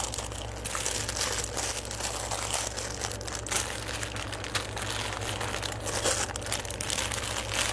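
Packaging, most likely jewelry bags, crinkling and rustling with many small crackles as items are handled, over a steady low hum.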